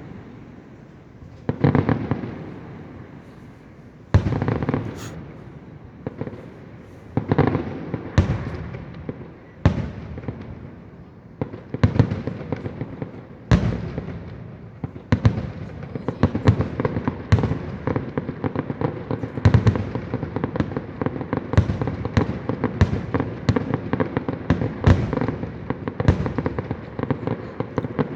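Aerial fireworks bursting overhead: separate booming shell bursts a second or two apart at first, then coming faster and overlapping in a dense, rapid barrage through the second half.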